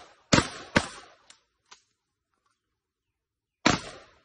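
Handgun shots fired outdoors: two sharp shots in quick succession at the start, then another shot near the end, each with a brief ringing echo.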